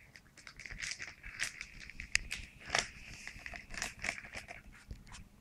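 Thin clear plastic bag crinkling and rustling in irregular crackles as it is handled in the mouth of a glass jar, to get leeches out of it into the jar.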